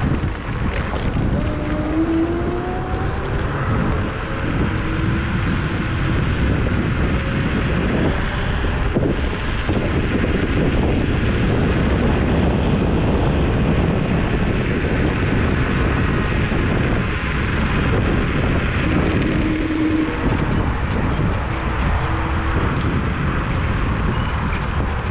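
Wind rushing over the microphone and road noise from an electric scooter under way, a Kaabo Mantis Pro SE, steady throughout. A faint whine rises in pitch about a second in.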